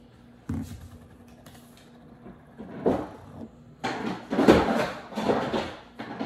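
Kitchen handling noises. A single knock comes about half a second in. From about three seconds in there is a run of rustling, knocking and clattering as things are moved about, loudest around four and a half seconds.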